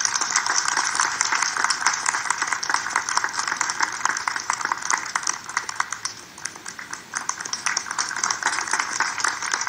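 Audience applauding: a dense patter of many hands clapping, which eases a little about two-thirds of the way through and then picks up again.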